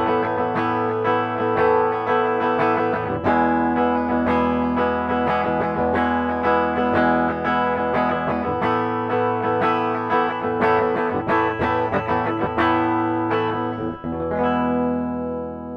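Schecter C1 Elite electric guitar played on its clean, dry tone with no effects: a run of picked notes and chords, ending with a chord left to ring and fade near the end.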